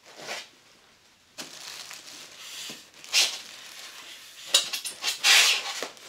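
Box packaging rustling and scraping in irregular bursts as a display base is pulled out of it, with the longest, loudest scrape about five seconds in.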